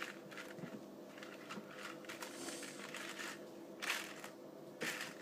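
Faint, scattered clicks and rustles of jelly beans being picked through and handled in a Bean Boozled box, with a soft crinkle of packaging.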